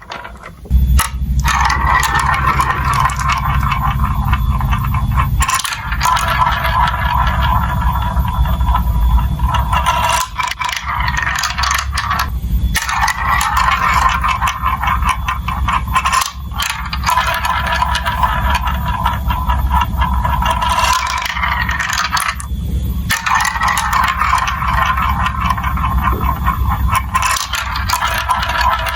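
Marbles rolling and rattling continuously along plastic building-block marble-run tracks, with a steady low rumble beneath, briefly dropping away four times.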